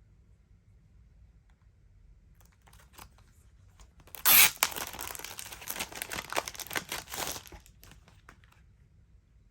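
Packaging being torn open: a few light handling clicks, then a sharp rip about four seconds in, followed by about three seconds of dense tearing and crinkling that dies away.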